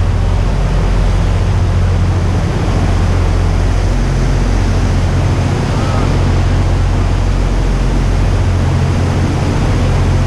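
A boat's engine running steadily with a low drone, under a constant wash of wind and water noise.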